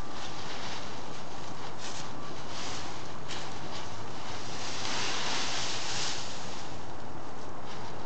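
Dry fallen leaves rustling as a beagle noses and pushes through a deep leaf pile, in uneven bursts with a longer, louder spell about five seconds in.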